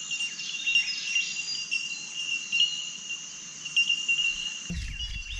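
Chorus of bell miners (bellbirds): many high, clear, bell-like pings at a steady pitch, overlapping without a break. Near the end the pings thin out and a low rumble comes in.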